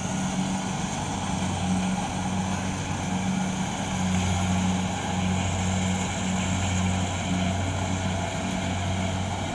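Kubota combine harvester's diesel engine running steadily while it cuts rice, a constant low drone.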